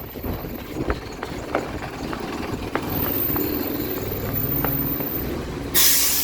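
A bus engine idling with a steady low hum and scattered footsteps. A loud hiss starts near the end.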